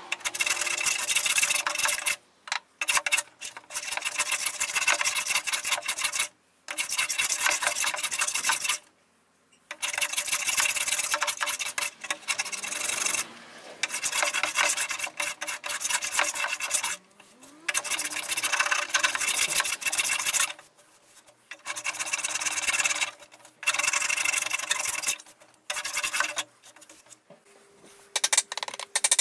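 Rasping, rubbing strokes of an abrasive or scraper worked by hand over wood. They come in runs of one to three seconds with short pauses between them, about a dozen runs in all.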